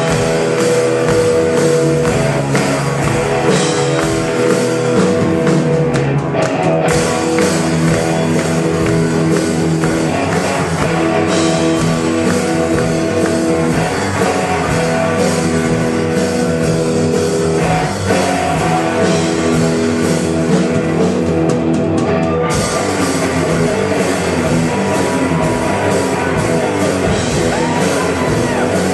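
Live rock band playing: electric guitars, bass guitar and drum kit, with a steady beat of low kick-drum hits under sustained guitar chords.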